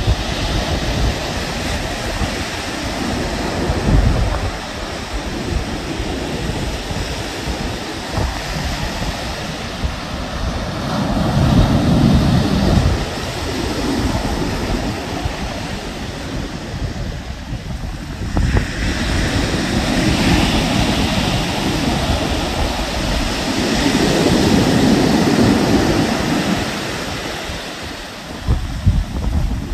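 Ocean surf breaking and washing up a sandy beach as a steady rush, swelling louder about a third of the way in and again through the last third. Wind buffets the microphone with low rumbles.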